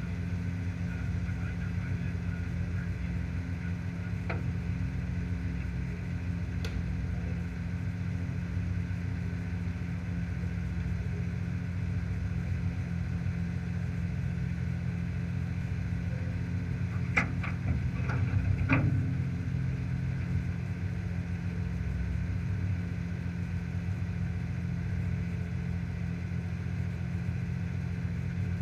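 Off-road race car's engine idling steadily while the car stands still. A few sharp clicks come a little past halfway.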